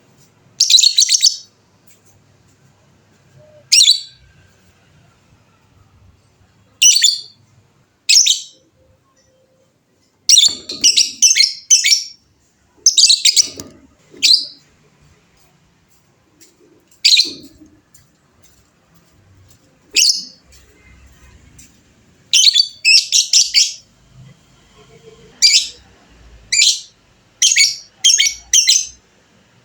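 Lovebird calling in loud, shrill chattering bursts separated by short pauses, several of them run together into longer strings: the 'ngekek' chatter that hobbyists prize in a contest 'fighter' lovebird.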